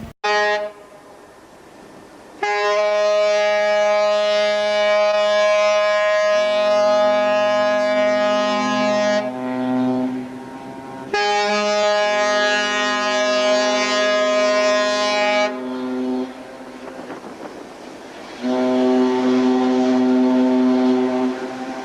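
Ship's horn sounding a brief toot, then three long blasts of several seconds each, every blast a steady chord of several notes; the last runs on past the end.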